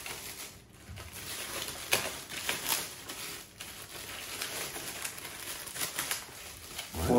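Gold metallic gift wrap crinkling and rustling in irregular crackles as it is pulled and folded back by hand. A voice starts right at the end.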